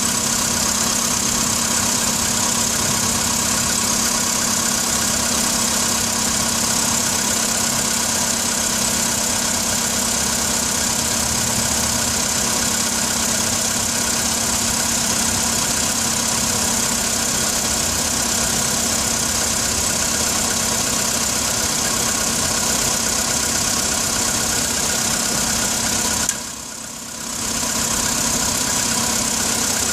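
Volkswagen Polo Sedan engine idling steadily with a knock. About 27 seconds in, the sound briefly drops in level for a second or so.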